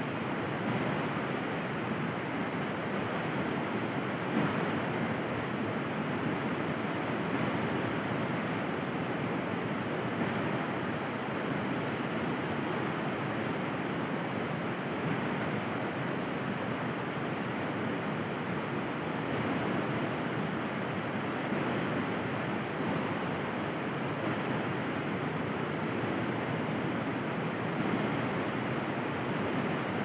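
River water flowing, a steady rush that does not let up.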